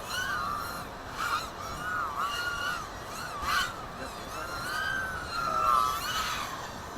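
FPV racing quadcopter's brushless motors (RS3 2100 kv) whining, the pitch swooping up and down again and again with the throttle.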